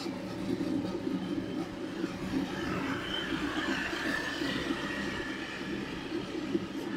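Bicycle tyres rolling along the road with a steady rumble, picked up by a microphone mounted on the handlebar, with some wind noise.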